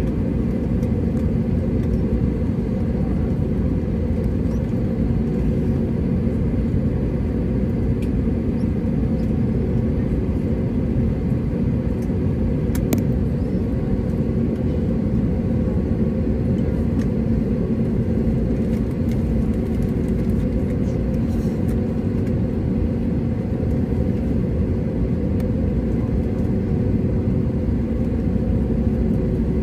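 Steady cabin noise inside an Airbus A320neo, heard from a window seat: an even low rumble with a constant hum, holding the same level throughout.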